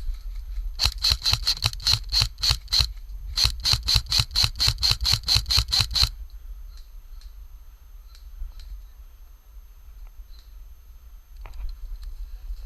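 Airsoft gun firing quick single shots: two strings of sharp cracks at about four to five a second, one of about nine shots and then, after a short pause, one of about fourteen.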